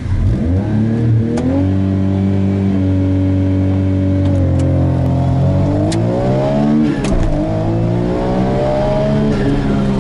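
Autozam AZ-1's small turbocharged three-cylinder engine accelerating hard from a standing start, heard from inside the cabin. The revs rise, hold steady for a few seconds, climb again, drop sharply about seven seconds in at a gear change, then climb once more.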